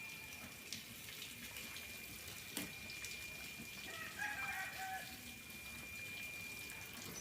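Water running and splashing while a vehicle is washed, with a chicken calling once, about four seconds in, for about a second. A steady high-pitched tone and a couple of sharp clicks sit underneath.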